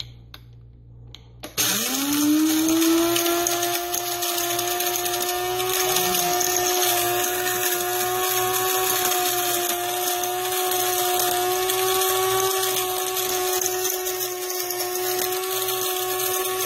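Coffee maker's motor starting about a second and a half in, its whine rising quickly in pitch, then running steadily over a hiss.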